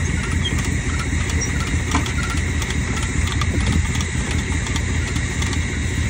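Truck engine idling steadily, with a few faint clicks scattered over it.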